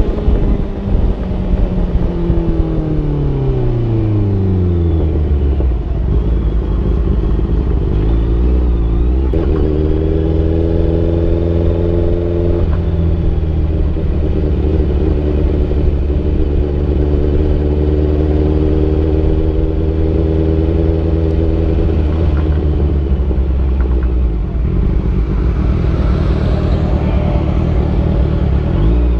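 Honda CBR650F's inline-four engine running as the motorcycle is ridden: its pitch falls over the first few seconds as it slows, climbs again, then holds steady at cruising speed with a few changes in engine speed and a rise near the end.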